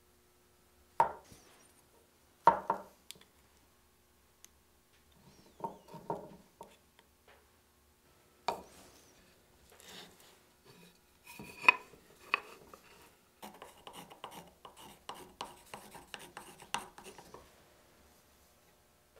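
Hand tools working wood on a wooden workbench: a few sharp knocks spread out over the first half, then a quick run of short knife strokes shaving wood for a few seconds.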